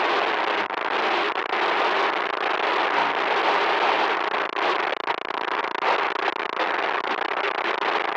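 Loud, harsh static noise: a dense crackling hiss with no tone in it, dropping out briefly a few times.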